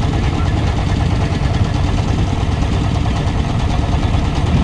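A boat's engine running steadily, a loud low drone with a rapid, even pulse.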